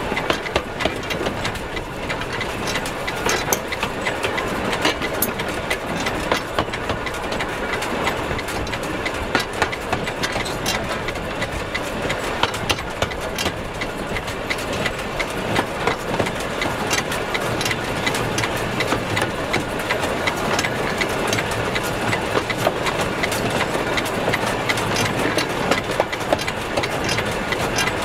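Steam locomotive running along the track, its driving wheels, coupling rods and valve gear in motion: a steady mechanical rattle thick with sharp clicks and clanks from the running gear and rails.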